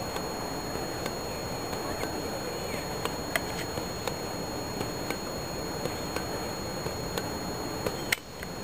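Steady wind rushing over the microphone in an open field, with a faint steady high whine and scattered faint clicks roughly once a second; a sharper click comes near the end, followed by a brief dip in the noise.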